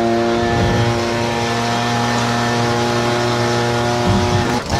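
Gas leaf blower running steadily at high speed, its engine note holding one pitch; the sound changes and briefly dips near the end.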